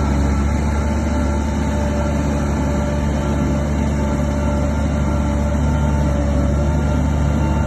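Shantui DH17 bulldozer's diesel engine running steadily under load, a deep constant drone with a faint steady whine above it.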